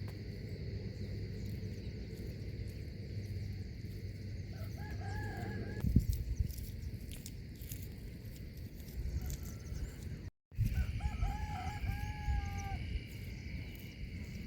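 A rooster crowing twice, about five seconds in and again near the end, the second crow finishing on a long held note. Steady low background noise throughout, with one sharp thump about six seconds in.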